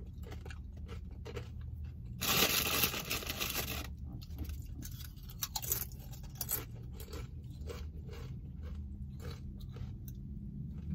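Close mouth sounds of eating: chewing, lip smacks and finger-licking clicks over a steady low hum. About two seconds in comes a louder scraping, crinkling noise lasting under two seconds.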